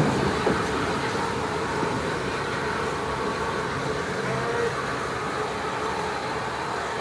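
Bulleid Battle of Britain Pacific steam locomotive (rebuilt) moving away along the track, its running and wheel-on-rail noise slowly fading as it draws off.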